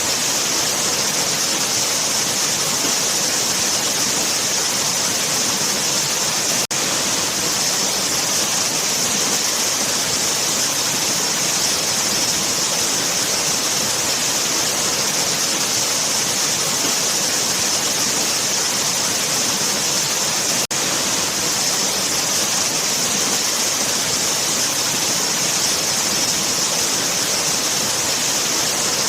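Waterfall: a steady, even rushing of falling water, broken by two very short dips about 7 and 21 seconds in.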